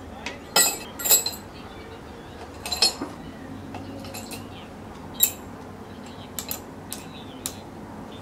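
A metal rod clinking and tapping against the crucible of a small electric melting furnace as molten aluminium is stirred: a series of sharp, irregularly spaced clinks, the loudest about a second in and near three seconds, over a faint steady hiss.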